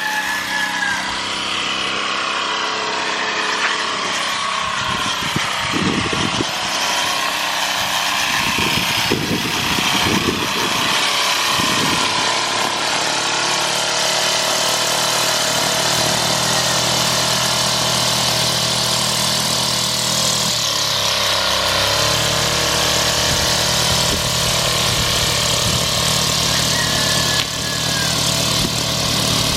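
Petrol weed whacker (string trimmer) engine running steadily, its speed dropping briefly and then settling about two-thirds of the way through.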